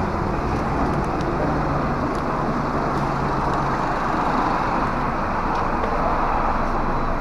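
Nissan Serena engine idling steadily and smoothly, its cylinder-3 misfire (code P0303) now fixed.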